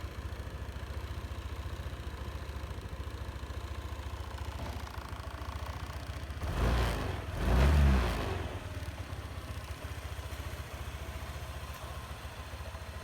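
Honda PCX125 scooter's single-cylinder engine idling steadily, blipped twice about six and a half and seven and a half seconds in before settling back to idle.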